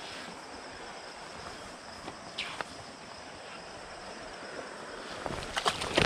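Creek water running steadily. About five seconds in, a hooked wild brown trout starts splashing and thrashing at the surface, and the splashing grows louder.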